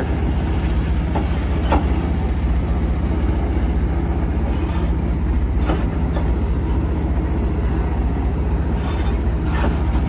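Tractor engine running steadily at low revs while pulling a hayride wagon, with a few faint knocks from the moving wagon.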